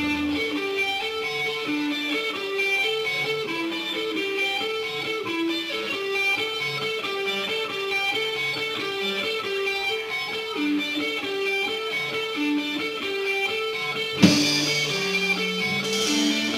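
Amplified electric guitar playing a repeating riff of single picked notes. About fourteen seconds in, a loud hit and lower notes join as the rest of the band comes in.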